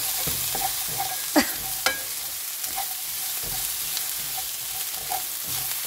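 Dried anchovies, walnuts and garlic sizzling in a hot frying pan as a wooden spatula stirs and tosses them, the added ginger cooking wine frying off. A couple of sharp scrapes of the spatula on the pan come about one and a half and two seconds in.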